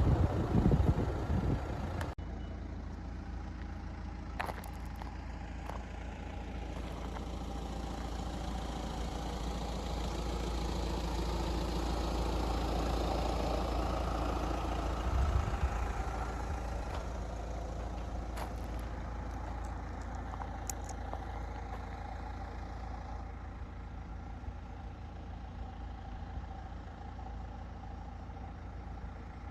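A vehicle engine running steadily, a low rumble that swells for a few seconds midway and then eases back, after a louder, rougher couple of seconds at the start.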